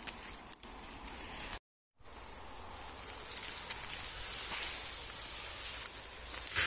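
Ferns and undergrowth rustling and swishing against a hiker's body and the camera as he pushes through dense bracken. There is a brief dropout to silence just under two seconds in, and the rustling grows louder from about three seconds.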